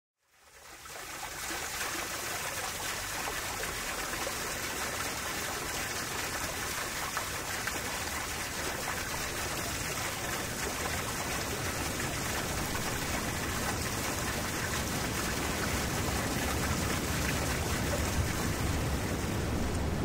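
Steady rush and splash of water falling from a waterfall, fading in over the first second or so.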